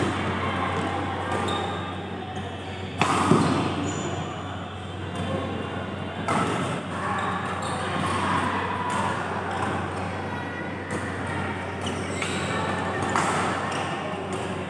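Badminton rackets striking a shuttlecock during doubles rallies in a large hall: sharp hits a few seconds apart, with shoes moving on the court and background chatter.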